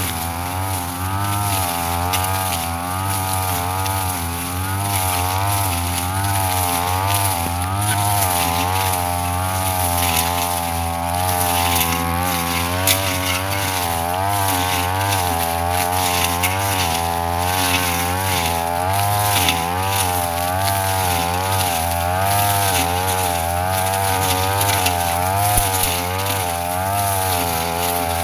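Petrol brush cutter running hard while cutting grass, its engine pitch wavering up and down continuously as the load on the blade changes.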